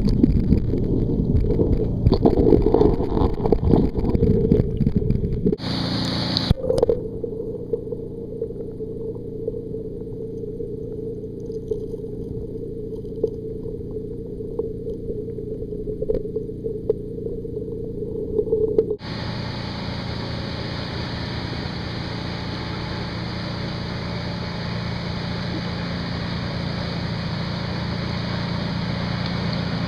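Water heard through a waterproof camera held underwater: a loud, rough rumble of water movement and handling, then a muffled steady underwater noise with a faint hum. About nineteen seconds in it changes abruptly to a steady open-air hiss, with the camera above the surface.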